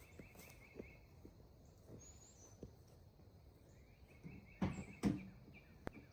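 Faint outdoor birdsong: two short trills and a rising chirp. There are a few soft ticks, and a brief rustle of handling about three quarters of the way through.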